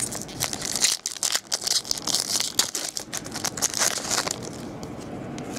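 A foil baseball-card pack is torn open and its wrapper crinkled in the hands. The crackling is sharp and irregular, busiest for the first four seconds or so, then it quietens.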